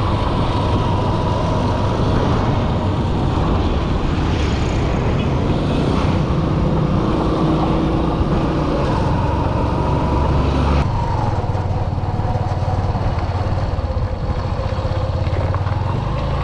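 A small engine running steadily with a strong low hum; its sound dulls abruptly about eleven seconds in.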